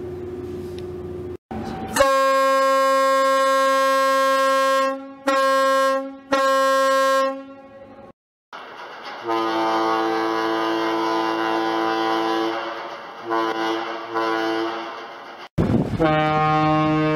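Ferry horns sounded one after another. The tail of one horn stops about a second in. A long, high horn blast starts about two seconds in and breaks off briefly twice. After a short gap the Washington State ferry Salish's lower, fuller horn sounds long, also with two brief breaks, and a new ferry horn starts near the end.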